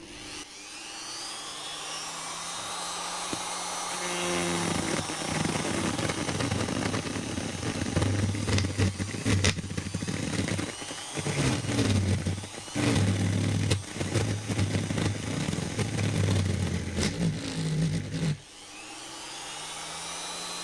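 Lidl-brand electric straight grinder running, its rotary burr carving a groove into olive wood. The motor whines freely at first. From about four seconds in it bites into the wood, and the sound turns rough and heavier, sagging and surging under load. Near the end it is lifted off and runs free again.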